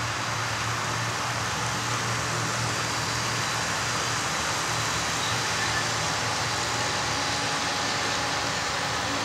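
HO-scale model train running past: the locomotives' electric motors and gears whir with a steady low hum, and the metal wheels roll along the track. The hum weakens about halfway through as the locomotives move off, leaving the freight cars rolling by.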